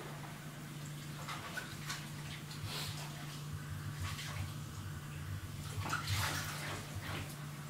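Tap water splashing into a bathroom sink as someone rinses at it, in uneven splashes, the loudest about six seconds in, over a steady low hum.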